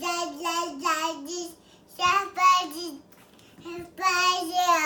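Toddler singing in sing-song vocal phrases, three in a row, the last one sliding down in pitch at the end.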